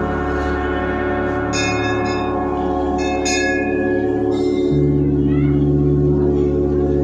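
Brass temple bells struck by hand a few times, about one and a half and three seconds in, ringing over a steady, many-toned drone whose low notes change near the end.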